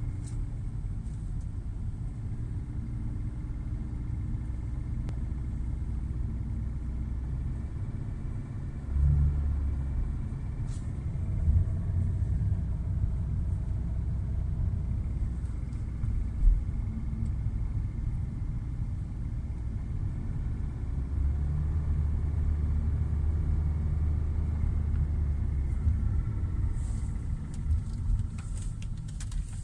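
Hyundai i40's 2.0 G4NA four-cylinder petrol engine running warm under load, heard from inside the cabin as a steady low rumble. This is the engine knock the owner is recording. A few short thumps come about a third and halfway through.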